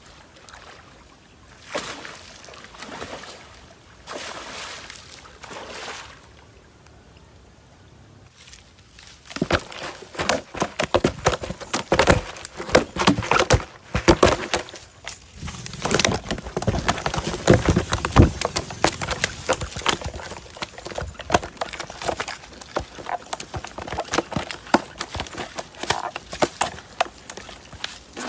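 Water splashing and sloshing: a few separate swells at first, then from about nine seconds in a dense, continuous run of rapid splashes.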